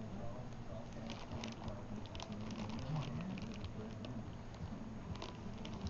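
Quick, light wet clicks and patter from hands handling a newborn pit bull puppy at its delivery.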